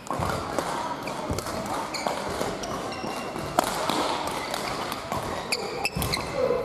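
Badminton rally: repeated sharp racket hits on the shuttlecock and short squeaks of court shoes on the hall floor, several squeaks close together about six seconds in.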